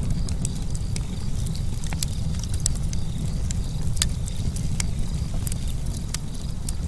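Outdoor nature ambience: a steady low rumble with irregular sharp crackles and ticks scattered through it and a faint steady high tone.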